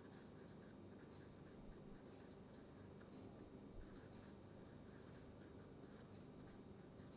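Faint scratching of a marker pen writing on paper, in short irregular strokes as the words are written.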